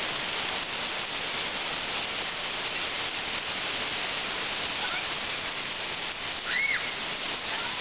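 Hail falling steadily, a dense even hiss. A short high chirp rises and falls about six and a half seconds in.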